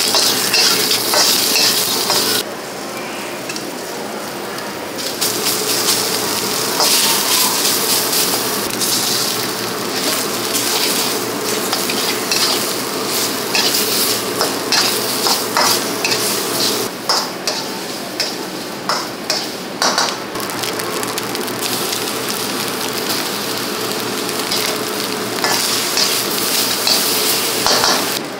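Shrimp, egg and rice sizzling in a hot wok while a metal wok spatula scrapes and clanks against the pan in quick stir-frying strokes. The sizzle drops briefly about two seconds in, then picks up again.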